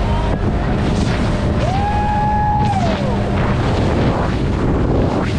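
Heavy wind buffeting the microphone on a fast-moving open boat, with the rush of the boat over the water. About two seconds in, a short tone rises, holds and falls away.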